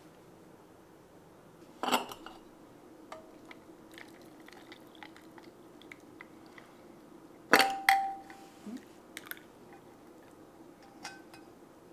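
Kitchenware clinking as a hot brew is strained: a saucepan and a metal mesh tea strainer knocking against a ceramic mug, with a sharp clink about two seconds in and a louder pair of clinks, the first ringing briefly, about seven and a half seconds in. A faint steady hum lies underneath.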